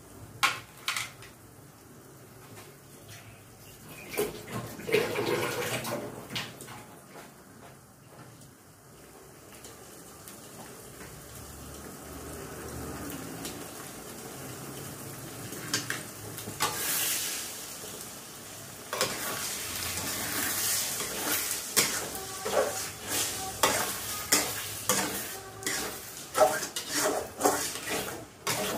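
Eggs sizzling as they fry in oil and onion-tomato masala in a metal kadai, the sizzle growing louder. About two-thirds of the way in, a spatula starts scraping and knocking against the pan in quick strokes as the eggs are scrambled for egg bhurji.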